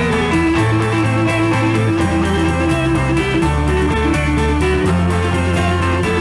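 Rock band recording: electric guitar picking arpeggiated chords at an even pace over a sustained bass line and drums.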